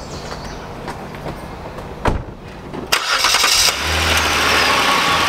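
A thump about two seconds in. About three seconds in, a vehicle engine cranks briefly, catches and settles into a steady idle.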